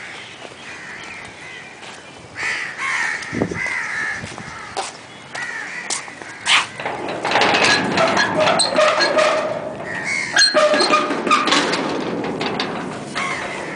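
Crows cawing over and over, louder and more often in the second half, with a couple of sharp knocks among the calls.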